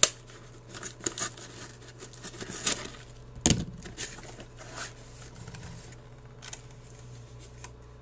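Hands opening a small mailed package: rustling and scraping of the packaging with scattered clicks, and a single thump about three and a half seconds in.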